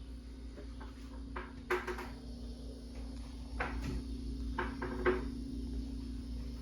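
Litex Windsong ceiling fan running, its motor giving a steady hum, with a few irregular light clicks and knocks over it. The fan has a bad capacitor.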